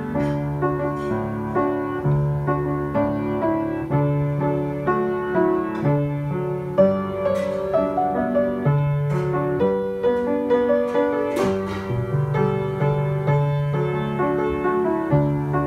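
Solo piano played with both hands: a hymn tune in the right hand over held low bass notes in the left, one note or chord after another at a steady, moderate pace.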